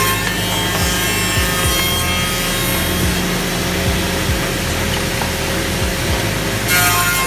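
BY-813 two-end CNC tenoning machine's rotating cutter heads milling tenons on the ends of round wooden workpieces: a steady machining noise over a motor hum, with a brief louder burst of cutting near the end.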